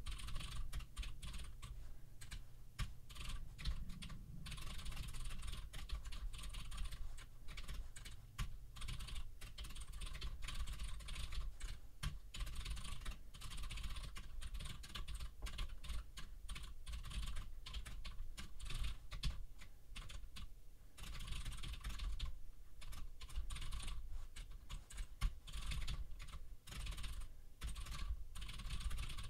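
Continuous fast typing on a computer keyboard: rapid key clicks with a few short pauses.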